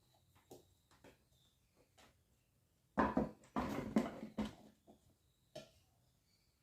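Parts of a standing fan being handled and fitted together: a few light clicks, then a burst of clattering knocks about three seconds in that lasts a second and a half, and one more click near the end.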